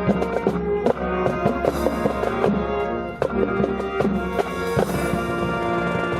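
Brass band music with drums: held brass chords over a steady drum beat, accompanying a drill routine.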